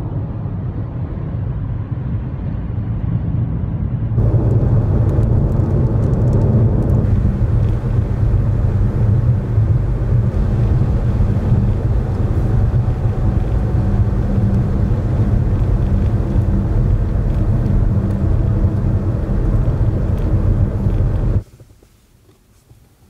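Steady low rumble of a motor vehicle's road and engine noise, getting louder about four seconds in and cutting off suddenly near the end.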